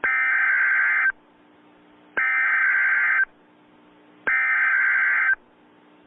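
Emergency Alert System SAME header: three bursts of shrill digital data tones, each about a second long with about a second's pause between, over a faint steady hum and hiss. The bursts are the coded start of an emergency alert.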